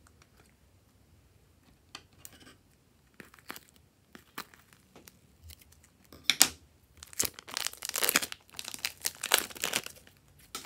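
Glossy slime being squeezed out of a plastic piping bag and worked by hand, making sticky crackling and clicking noises. These are sparse at first, then dense and loud from about six seconds in until shortly before the end.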